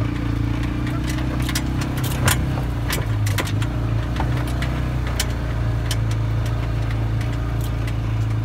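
Side-by-side utility vehicle's engine running steadily as it drives over rough ground, with loose parts rattling and clicking; the sharpest rattle comes about two seconds in.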